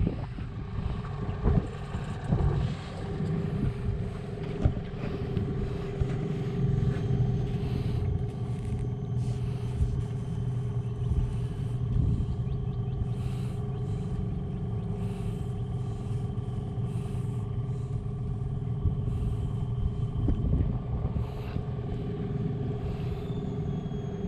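Small wooden fishing boat's engine running steadily while the boat travels across the water.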